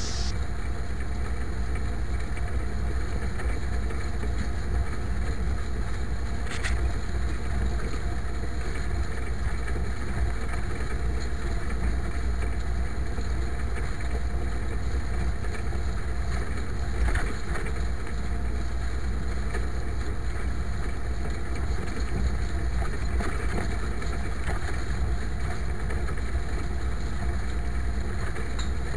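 IMT 539 tractor's three-cylinder diesel engine running steadily while pulling a harrow over sown wheat.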